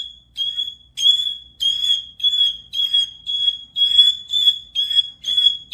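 A bird calling the same short, high, shrill beep-like note over and over, about twice a second, each note held at one steady pitch.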